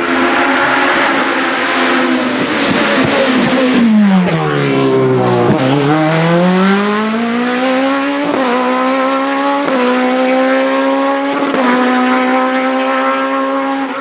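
Sports prototype race car's engine at full racing pitch. The note falls to its lowest as the car passes, then climbs as it accelerates away, with three quick upshifts in the second half.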